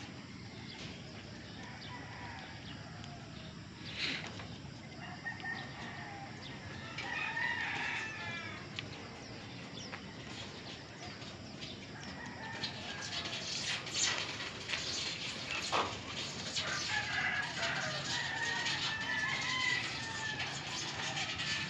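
Roosters crowing several times, the longest calls about seven seconds in and again in the second half, with a few sharp clicks.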